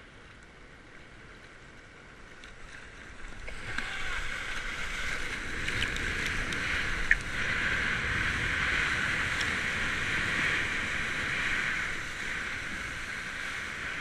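Water rushing past a surfboard-mounted GoPro as the board catches and rides a breaking wave: quiet lapping at first, then a steady rushing hiss builds from about three and a half seconds in, with one sharp tap about halfway through.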